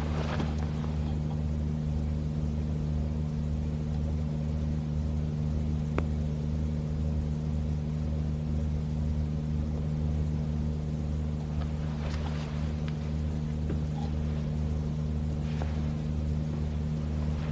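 A steady low drone made of several held low tones that do not change, with a few faint ticks over it.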